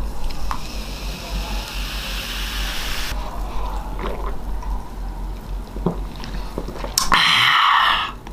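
Cola poured from a bottle into a glass mug, fizzing and hissing for about three seconds. Then a few soft gulps as it is drunk, and a loud hiss about a second long near the end.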